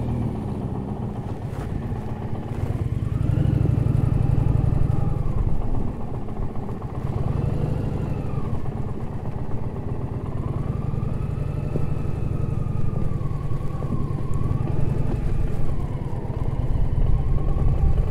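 Indian Challenger's 1768 cc liquid-cooled V-twin engine running at low speed on a dirt track, heard from the rider's seat, its note rising and falling with the throttle.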